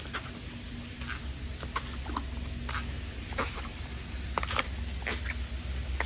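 Short chirping animal calls, about a dozen at irregular intervals, some rising slightly in pitch, over a steady low rumble.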